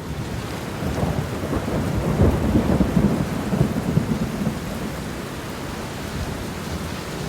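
Steady rain hissing, with a roll of thunder rumbling low beneath it. The thunder builds about a second in and fades away after about four seconds.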